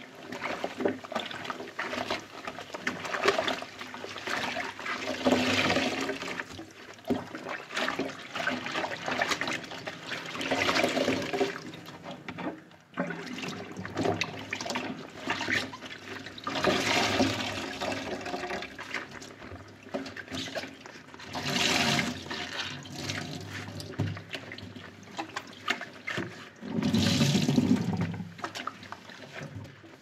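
A soapy sponge squeezed and worked by rubber-gloved hands in sudsy water in a stainless steel sink: wet squelching, sloshing and dripping that swell into louder bursts every few seconds.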